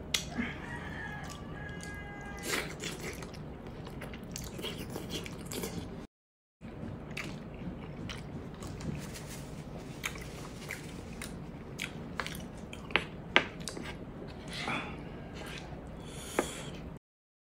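Close-miked chewing and wet mouth smacking of soft, tender braised pork hock and rice, with many short sharp clicks. It is broken twice by a moment of dead silence.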